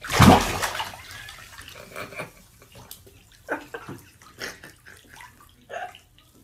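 Bathwater splashing as a cat goes into a filled bathtub, the splash fading within about a second. A few faint short sounds follow.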